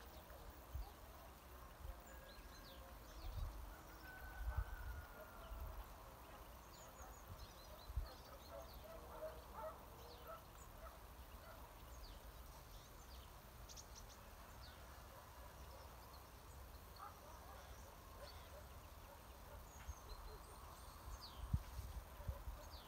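Mixed finch flock of Eurasian siskins, goldfinches, greenfinches and serins calling: faint, scattered high twittering calls throughout. Occasional low thumps on the microphone, the loudest about four and a half seconds in and near the end.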